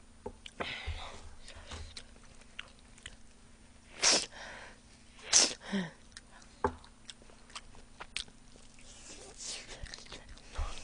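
A person eating spicy fried chicken: soft chewing and small mouth clicks, with two loud, sharp breathy bursts about four and five and a half seconds in. The second burst trails into a short falling voiced sound.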